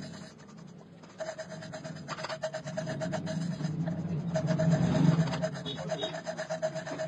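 A tool scraping metal on an engine valve seat: a fast, even ticking over a low steady hum, starting about a second in and loudest about five seconds in.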